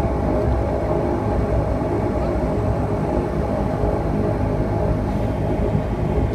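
Turboprop airliner's engine and propeller running with a steady droning hum at taxi power, heard from inside the passenger cabin.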